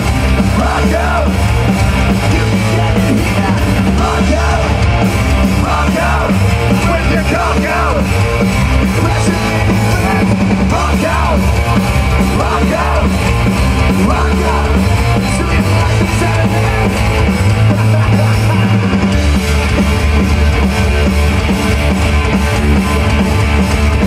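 Live hard rock band playing loud: distorted electric guitars, bass and drums, with a singer's vocal line coming and going.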